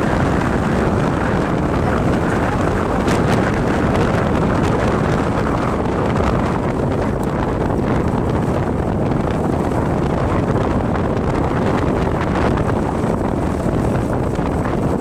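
Steady wind noise buffeting the microphone of a phone held out from a moving motorcycle, covering any engine sound.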